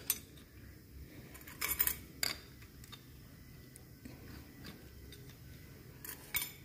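Metal tools and motorcycle clutch parts lightly clinking as they are handled: a few scattered taps, a small cluster about two seconds in and another near the end.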